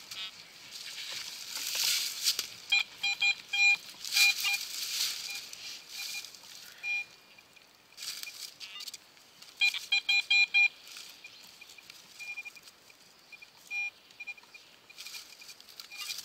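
Metal detector giving short repeated beeps in clusters as the coil is swept over a freshly dug hole, with scraping and rustling of spade digging in leaf litter and soil between. The irregular chirping is, in the other searcher's guess, interference between two detectors tuned to nearby frequencies.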